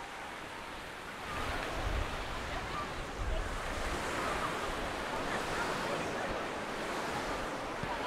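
Atlantic surf washing onto a sandy beach, a steady rushing wash that swells about one and a half seconds in, with wind buffeting the microphone now and then.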